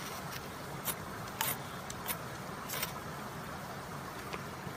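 A steel blade scraped sharply down a magnesium/flint fire-starter rod several times, each stroke a short, bright rasp as sparks fly, over a steady background hiss.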